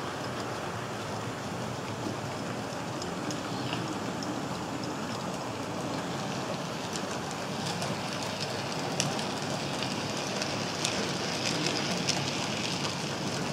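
Model train of a Fleischmann class 41 steam locomotive and four-axle tank wagons rolling along the track: a steady rattling whir of motor and wheels on the rails, with sharp ticks and clicks that come more often in the second half as the wagons pass.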